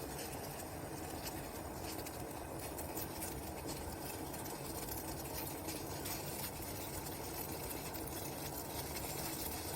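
A pan of Kashmiri kahwa (water with green tea leaves and crushed cardamom and cinnamon) simmering on the stove: a steady bubbling.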